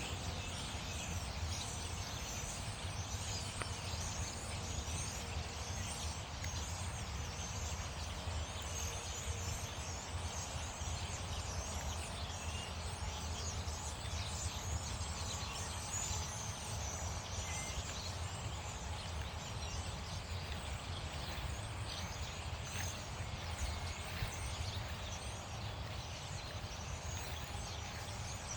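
Park ambience: many small birds chirping and twittering throughout, over a steady low background rumble.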